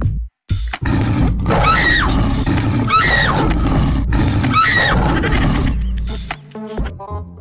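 Loud tiger-roar sound effect: three near-identical roaring calls about a second and a half apart, each with a falling cry over a heavy low rumble, with music underneath.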